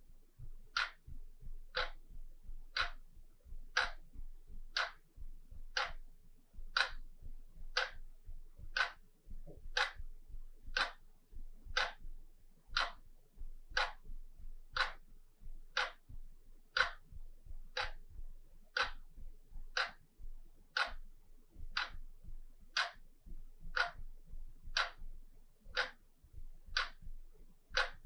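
Wall clock ticking steadily, about one sharp tick a second.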